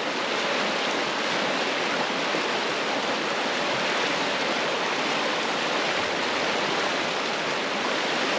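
Middle Fork of the Gila River rushing steadily, running high and deep with a strong current, too dangerous to wade across.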